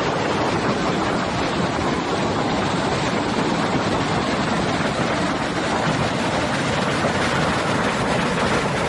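Duckabush River rushing through rapids at the fishing hole: a loud, steady roar of white water.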